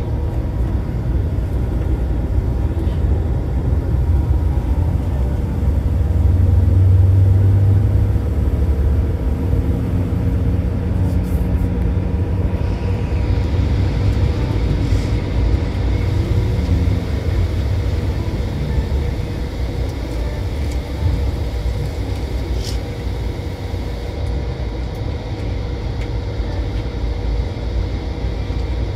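A rear-engined Mercedes-Benz diesel bus on the move: a steady low rumble of engine and road noise, swelling briefly about six seconds in.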